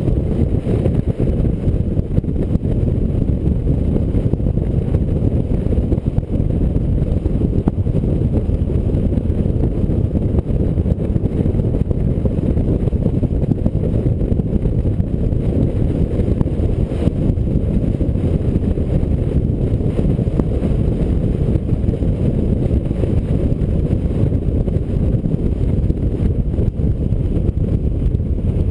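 Steady low wind rumble and road noise from a car driving at highway speed, heard through a roof-mounted action camera buffeted by the airflow.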